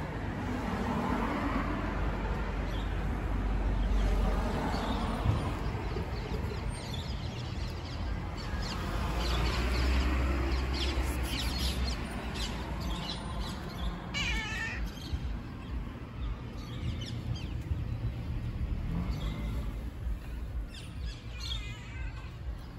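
Stray cats meowing a few times, drawn-out rising and falling calls, over a low background rumble.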